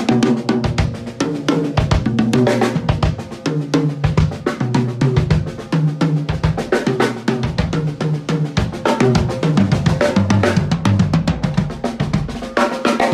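Tama Starclassic drum kit played raw in a continuous busy groove: kick, snare, hi-hat and cymbals, with ringing pitched tom hits in the fills.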